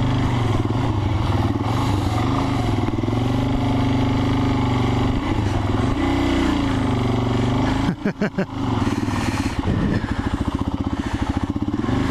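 Adventure motorcycle engine running under load at low speed through a snow crossing, its revs rising and falling. The sound breaks up briefly about eight seconds in, then settles into a slow, pulsing chug.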